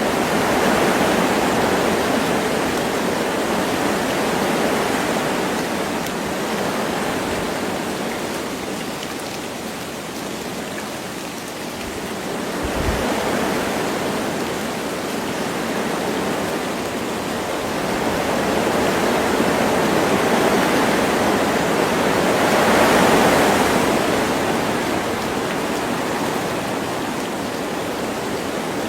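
Wind gusting through forest trees with light rain: a rushing hiss that swells and eases several times, loudest in a surge about three quarters of the way through. A brief low thump about halfway through.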